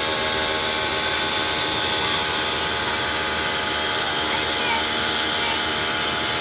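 Pressure washer running steadily, its motor and pump whining, while the gun sprays a hissing jet of water onto a motorcycle.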